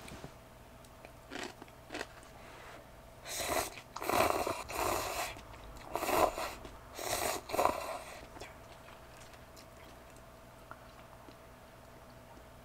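Noodles slurped from a cup of instant ramen off chopsticks: a couple of short slurps, then a run of loud slurps and chewing in the middle, stopping after about eight seconds.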